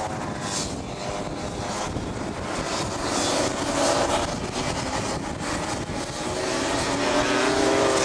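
A pack of Rotax Max 125cc two-stroke kart engines racing through corners, their overlapping notes falling and rising as the karts brake and accelerate, getting louder near the end. Wind rumble on the microphone runs underneath.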